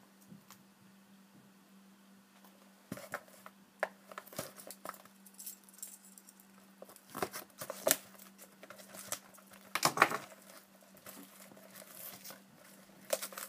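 Hands handling and opening a shrink-wrapped box of hockey cards: scattered taps, clicks and crinkling of the plastic wrap, starting about three seconds in and loudest around eight and ten seconds. A faint steady low hum runs underneath.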